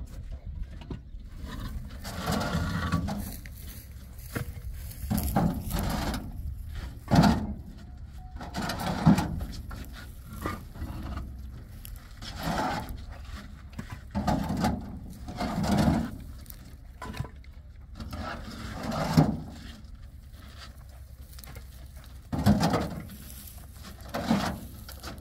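Irregular scraping and knocking about every one to three seconds, a few sharper knocks among them, as of building blocks being handled and set down.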